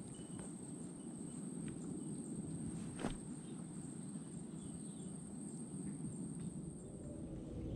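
Insects, crickets, keeping up a steady high-pitched drone over a low outdoor rumble, with one sharp click about three seconds in.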